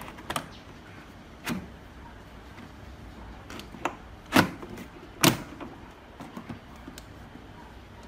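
Plastic evaporator fan cover of an old Toshiba refrigerator being pressed into the freezer compartment by hand: a handful of sharp plastic clicks and knocks as it seats, the two loudest about four and five seconds in.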